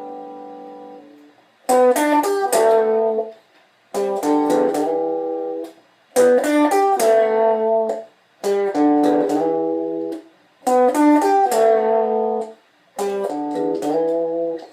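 Strat-style electric guitar playing the same short chord phrase six times, about every two seconds: a few quick chord strikes, then a held chord, each cut off sharply.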